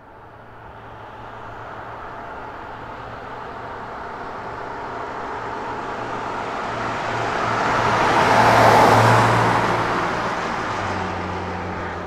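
A car driving past: steady engine hum and road noise that grow louder over several seconds, are loudest about nine seconds in, then fade.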